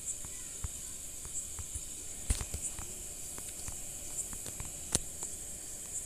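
Faint steady high-pitched hiss with scattered light clicks, and two sharper ticks about two and five seconds in.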